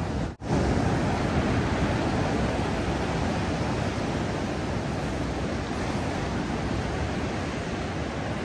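Ocean surf breaking and washing up a sandy beach, a steady rushing noise. The sound cuts out for a split second near the start.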